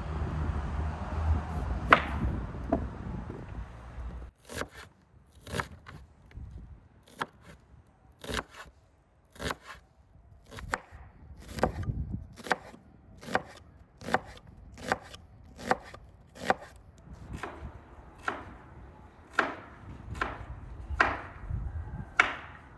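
Cleaver slicing a red onion on a wooden cutting board: sharp knocks of the blade on the board, about one to two a second, after a low rumble in the first few seconds.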